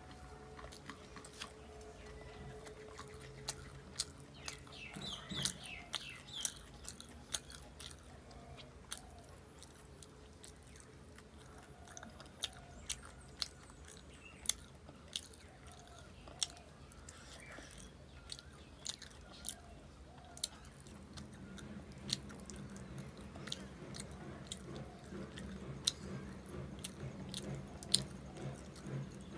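Close-up chewing of rice and fish eaten by hand, with frequent wet mouth clicks and lip smacks at an irregular pace, over a low steady hum.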